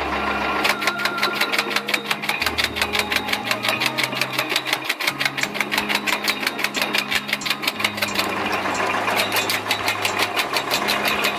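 Firewood cutting machine running with a rapid, even mechanical clatter of about seven beats a second.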